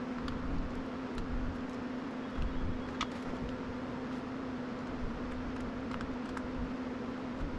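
A steady low hum at one pitch, with a few light clicks and taps, the clearest about three seconds in.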